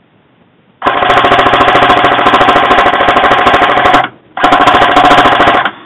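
Airsoft rifle fired on full auto close to the microphone: a long burst of about three seconds, a short pause, then a second burst of about a second. Each burst is a fast, even rattle of shots.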